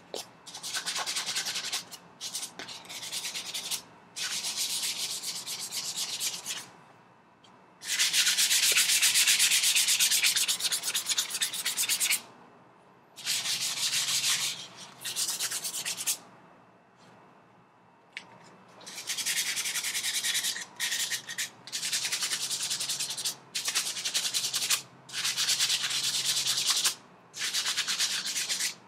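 Sandpaper rubbed by hand over the rusty steel rails of a bicycle saddle to take off surface rust. It goes in spells of quick back-and-forth strokes with short pauses between them, and the longest, loudest spell falls about a third of the way in.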